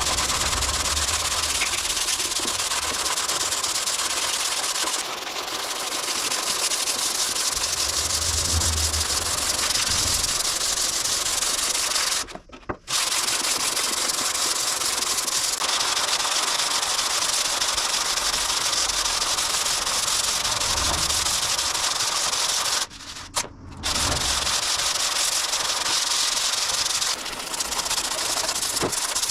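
Sanding of cured body filler on a car bonnet: a steady hiss of abrasive on filler that stops briefly twice, about twelve seconds in and again about twenty-three seconds in.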